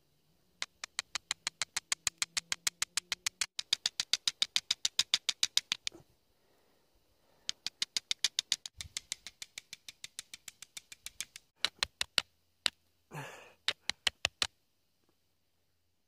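Flint and marcasite struck together over and over to throw sparks onto tinder: sharp stone-on-stone clicks, about six or seven a second, in two fast runs of several seconds each. Near the end come a few slower strikes and one short scrape.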